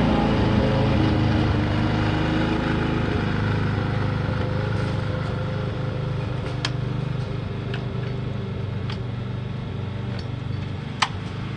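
Lawn mower engine running steadily, slowly getting quieter as it moves away, with a few sharp clicks.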